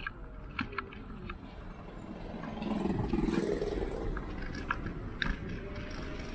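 Ride noise from a Ninebot ES2 electric kick scooter: a steady low rumble of its small wheels on the road, broken by a few sharp rattling clicks. The rumble grows louder for a couple of seconds around the middle.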